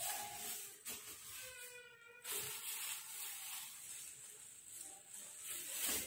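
Rustling and handling noise as purchased items are rummaged through by hand, coming in uneven surges.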